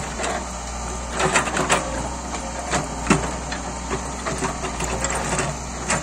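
Caterpillar backhoe loader's diesel engine running steadily as the backhoe arm digs, with sharp knocks and clanks of the bucket and linkage working through soil, roots and rock, a quick cluster about a second in and single knocks around three seconds and near the end.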